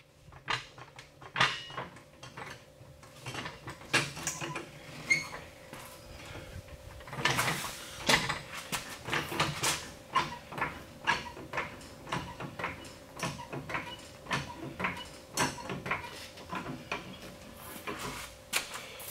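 Hydraulic floor jack being pumped by its long handle, its strokes giving a steady run of metallic clicks and clunks as it lifts the truck on its frame.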